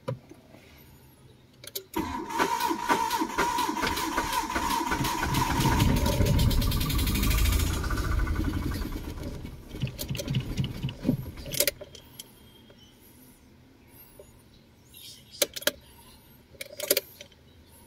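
Mitsubishi Lancer's starter cranking with a steady whine for a few seconds on the first start after sitting unused for over a year. The engine catches and runs briefly at raised revs, then stumbles and stalls after about ten seconds. A few sharp clicks follow near the end.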